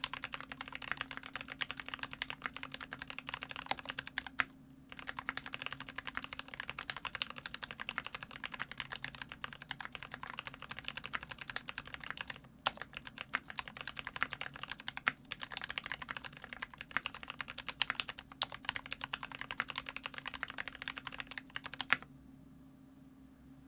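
Fast continuous typing on an LZ IRON Antique custom mechanical keyboard with lubed Gateron Ink Black linear switches, a brass plate and GMK keycaps, with a few louder single key strikes. There is a brief pause about four and a half seconds in, and the typing stops near the end.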